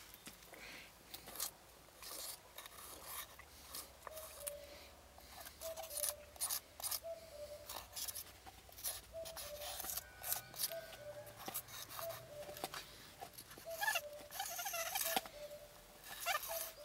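A lump of charcoal scratching across a wooden spoon blank in many short, irregular strokes as the spoon outline is drawn, with a louder run of strokes near the end.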